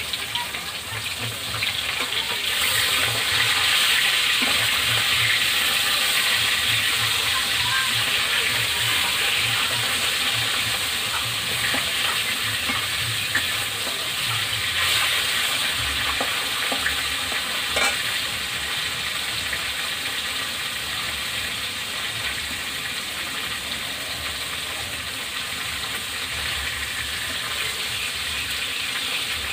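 Food sizzling in hot oil in a pan as it fries, a steady hiss that swells about two and a half seconds in, with a few sharp clicks.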